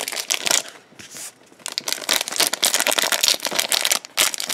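Trading-card booster pack being opened and its cards handled: the pack's plastic wrapper crinkling and the cards rustling. It comes in a brief burst at the start, then a longer run from about a second and a half in.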